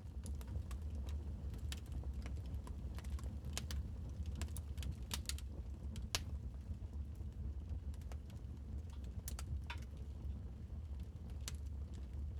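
Wood fire crackling in a fireplace: irregular sharp pops and snaps over a steady low rumble, with one louder pop about halfway through.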